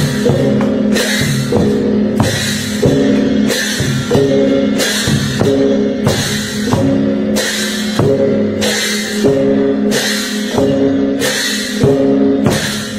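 Klong sabat chai (Lanna victory drum) ensemble: the large barrel drum beaten with two tufted sticks, cymbals crashing about once a second in a steady rhythm, and gongs ringing underneath.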